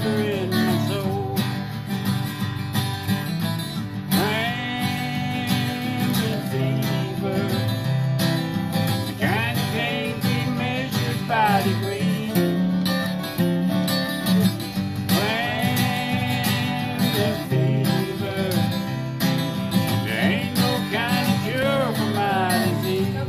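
Acoustic guitars picking a bluegrass-style tune together, with a voice singing phrases in places.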